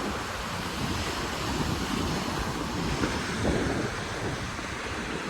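Pacific surf washing onto the shore, mixed with steady wind buffeting the microphone.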